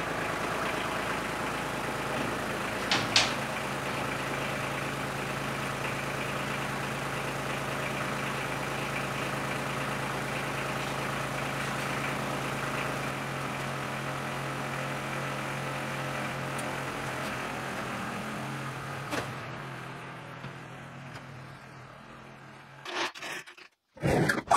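Tractor engine running steadily while it tows a pickup rolling on wheel dollies by a chain, with scraping and rattling from the dollies and two sharp clicks about three seconds in. The engine sound fades away after about twenty seconds, and a few loud knocks follow near the end.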